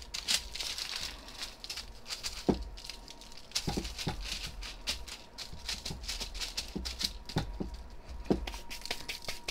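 Hands patting and pressing seasoning into raw steaks on parchment paper: a run of soft pats and light crackles, with several duller thumps as the meat is pressed down.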